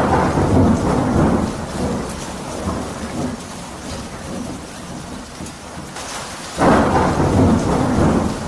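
Steady rain with rolling thunder: a loud peal at the start and another about seven seconds in.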